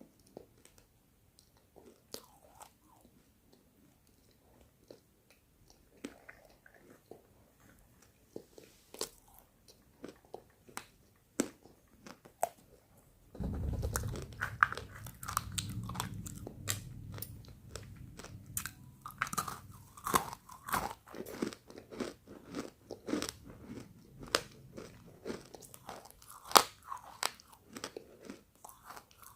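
Close-miked biting and crunching of roasted pink chalk, edible clay baked until it breaks into brittle pieces, with many sharp, irregular cracks. From about halfway the chewing gets louder and fuller, with a low rumble underneath the cracks.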